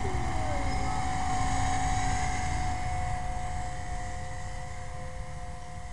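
Blade 450 X electric RC helicopter in flight: a steady whine from its brushless motor and rotor, fading gradually over the last few seconds as it moves away.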